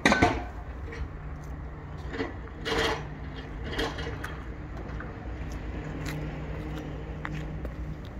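LIFTEX 18ET-S semi-electric pallet truck's electric motor humming steadily, with several clicks and rattles in the first four seconds.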